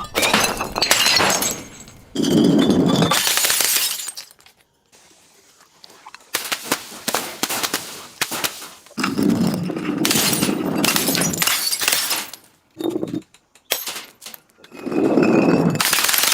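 Objects being crushed and broken: about six bursts of crackling and crunching, several lasting two to three seconds, with a lull near the middle.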